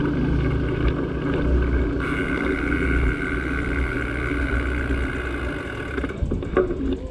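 Small motorcycle engine running at low speed with a steady whine, which dies away about six seconds in as the bike comes to a stop.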